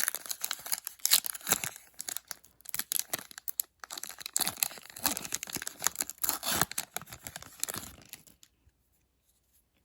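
Foil trading card pack wrapper being torn open and crinkled by hand, an irregular crackle of tearing and rustling that stops about eight and a half seconds in.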